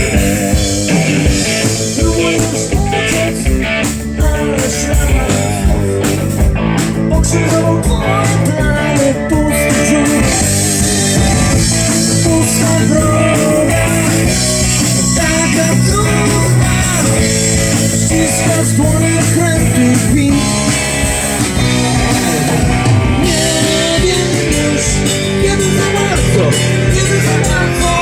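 Rock song with guitar, drums and a singing voice, played live by a band.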